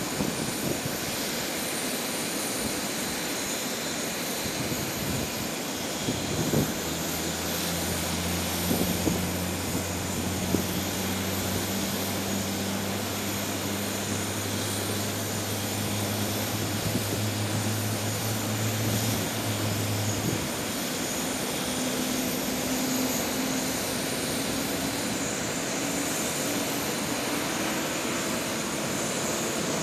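Airbus A350-900's Rolls-Royce Trent XWB turbofan engines running at low taxi thrust, a steady jet whine and rush. A low hum comes in about six seconds in and stops near the middle, after which a tone slowly rises in pitch.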